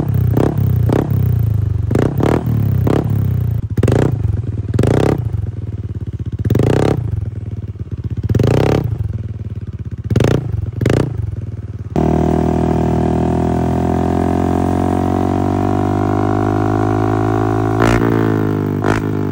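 Yamaha Aerox V2 scooter's 155 cc single-cylinder engine through a KVIN big-tip aftermarket exhaust, idling with a string of quick throttle blips. About twelve seconds in it is held at steady higher revs for some six seconds, then drops back to idle near the end.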